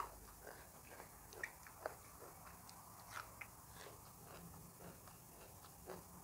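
Faint close-miked chewing with the mouth closed: small wet crackles and a few crisp crunches of raw greens, scattered and thickest in the first half.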